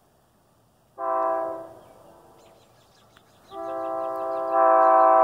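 Metra locomotive's multi-note air horn sounding two blasts: a short one about a second in, then a long one that swells louder partway through.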